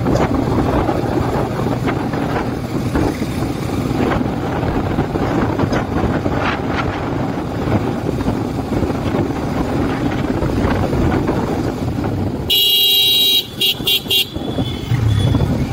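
Honda SP single-cylinder motorcycle running at riding speed, engine and road rush steady. About twelve seconds in a horn sounds: one long blast, then a few short toots.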